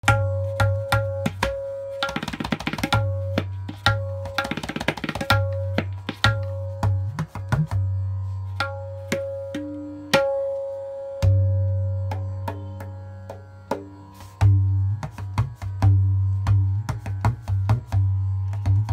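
A pair of tabla played by hand: ringing strokes on the treble drum at a steady pitch over deep bass-drum strokes, with two quick rolls about two and four seconds in. One bass stroke about halfway through rises in pitch as the hand presses the head.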